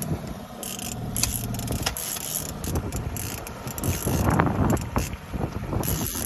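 Boat's outboard motor running with a steady low hum while a trolling rod's reel is cranked in, giving scattered clicks. From about four seconds in, gusts of wind buffet the microphone.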